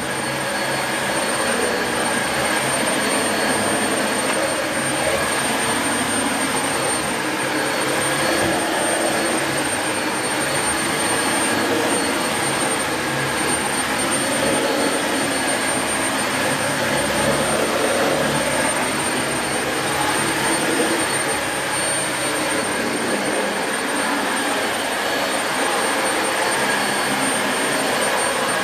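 Dyson Light Ball Multi Floor upright bagless vacuum cleaner running steadily, a constant rushing suction noise with a thin high-pitched whine on top.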